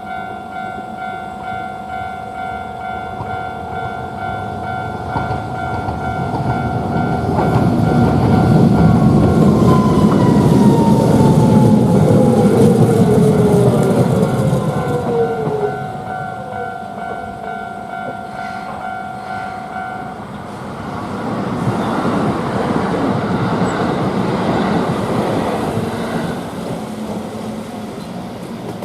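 Japanese level-crossing alarm bell ringing its steady kan-kan while a Hiroshima Electric Railway Miyajima Line tram rumbles across the crossing, loudest midway, with a falling whine as it passes. The bell stops about two-thirds of the way in, and a second, quieter rumble of wheels follows.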